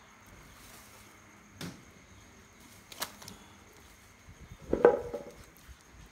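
Scattered handling noises of raw pork and pig-head bone on a plastic tarp: a dull knock and a sharp click. About five seconds in comes a brief, louder pitched call.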